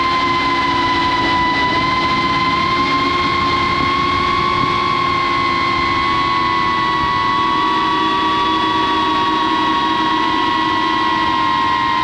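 Cinewhoop FPV drone's brushless motors and ducted propellers whining steadily in cruising flight, the pitch wavering slightly with throttle.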